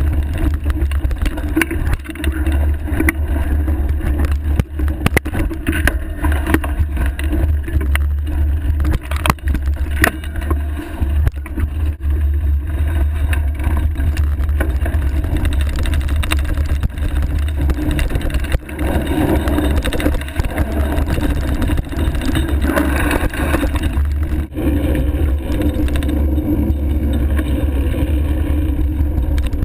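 Surly Ice Cream Truck fatbike on 4.8-inch Knard tyres rolling over a rough dirt trail, heard through a handlebar-mounted camera: a steady low rumble with frequent knocks and rattles as the bike goes over rocks and roots.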